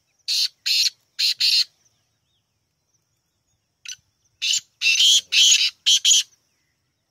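Black francolin calling: two phrases of harsh, scratchy notes. The first is four quick notes; about four seconds in comes a short note, then a run of five louder notes.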